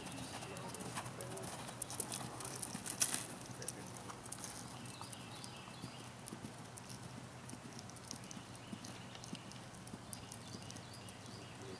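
A horse's hoofbeats at a trot on sand arena footing, a run of light irregular clicks that grow fainter as the horse moves away.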